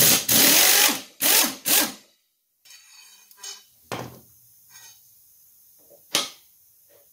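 Power tool running in three bursts to undo the lawn mower's blade bolt: one of about a second, then two short ones within the first two seconds. Light metal clinks follow as the blade comes off, then a single sharp clank about six seconds in.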